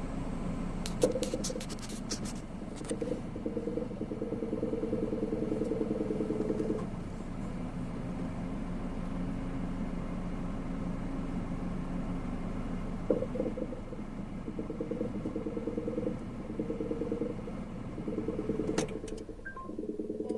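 Honda N-BOX Custom (JF3) with the air conditioner on: a steady hum runs under an intermittent buzzing rattle. The rattle comes in stretches of several seconds, each starting with a click; this is the abnormal noise that appears when the air conditioning is used.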